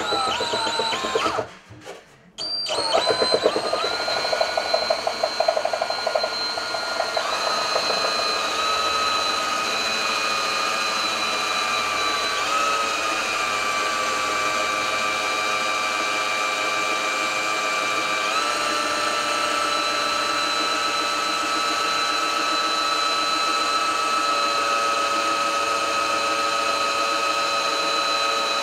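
Electric drill boring into a model ship hull. The motor runs with a steady whine, cuts out briefly about two seconds in, then restarts and runs on, its pitch shifting a little a few times as the speed changes under load.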